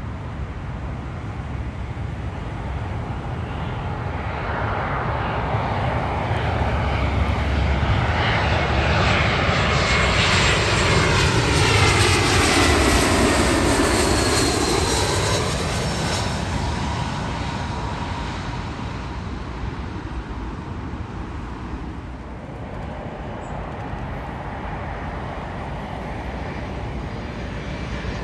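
Airbus A320-family jet airliner passing on its landing approach. The engine noise swells to a peak about halfway through, with whining tones that fall in pitch as it goes by, then fades away.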